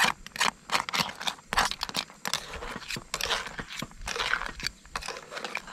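A pot of crab stew cooking, with a steady run of irregular pops and crackles.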